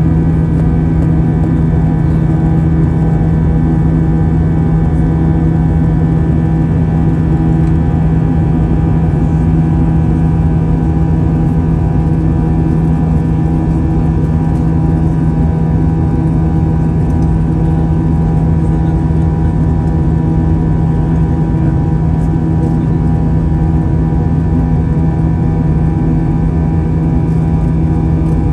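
Airbus A320 jet engines and airflow heard inside the passenger cabin during the climb after takeoff. A steady drone, with a strong low hum and fainter higher whining tones over a constant rushing noise.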